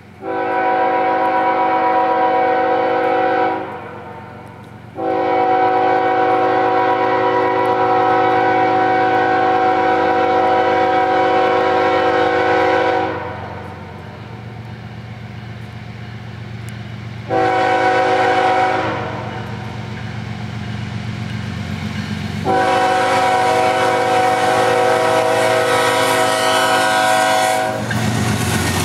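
Diesel locomotive air horn sounding a chord of several notes in the grade-crossing pattern: long, long, short, long. This is the standard warning for a public road crossing. Beneath the horn, the low rumble of the approaching train builds, and near the end the locomotive's engine and wheel noise surge in as it reaches the crossing.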